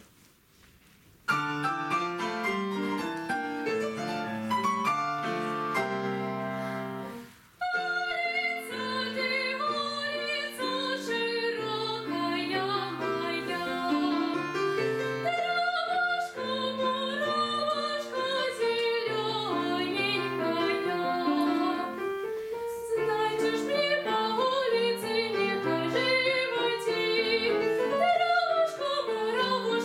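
Petrof grand piano playing an introduction, starting about a second in; from about eight seconds a girl sings with the piano accompanying her.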